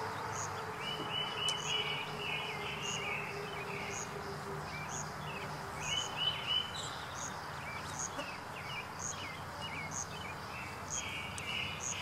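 Outdoor ambience of birds chirping in short trills, with a thin high chirp repeating about twice a second and a faint steady low hum underneath.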